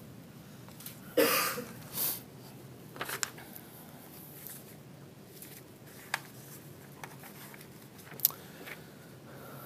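Paper rustling as a thick stack of printed pages is leafed through and loose sheets are handled, in a few short rustles and sharp taps; the loudest is a burst just over a second in.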